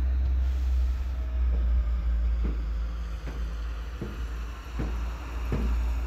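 High-heel footsteps clicking on a tiled floor, a little more than one step a second, over a steady low rumble.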